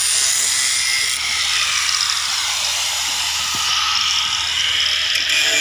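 Handheld electric angle grinder running steadily, grinding along a seam on a steel plate, a continuous high whine with hiss.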